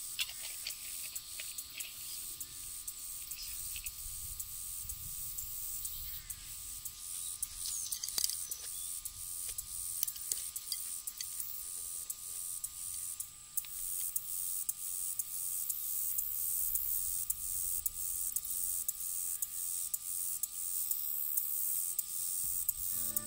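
Steady high-pitched buzzing of insects in summer grass, with a few soft clicks and rustles of cloth and a container being handled.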